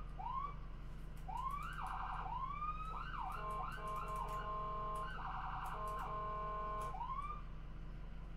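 Electronic siren or alarm cycling through its patterns: short rising whoops, a fast warble, steady tones, then the warble and whoops again.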